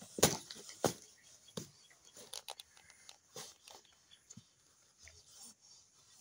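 Muscovy drake and rooster fighting: a run of sharp wing slaps and scuffles on the dirt, loudest in the first second, growing sparser and fainter after about four seconds.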